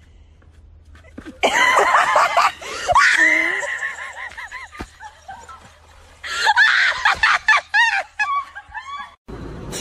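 Loud, high-pitched laughter in two long bursts, the second breaking into quick, rhythmic ha-ha-ha pulses.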